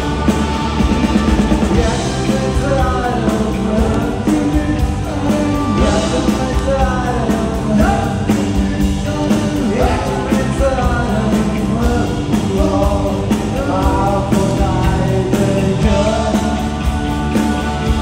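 A live rock band playing, with electric and acoustic guitars and a man singing.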